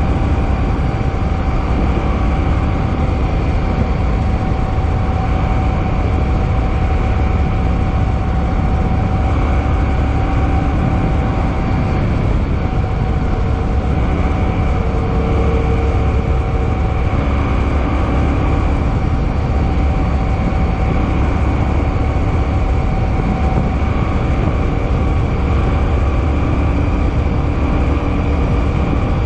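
Suzuki Boulevard M50's 805 cc V-twin running steadily at cruising speed under a continuous rush of road and wind noise, with no change in pace.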